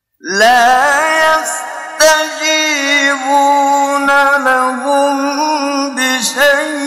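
A solo male voice chanting the Quran in a slow, melodic recitation. It comes in after a moment of silence and holds long, ornamented notes that waver in pitch.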